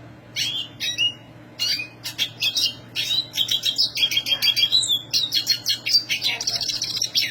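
Black siskin singing a fast, high-pitched twittering song of chirps and trills. It comes in short phrases at first, then runs almost without a break from about three seconds in.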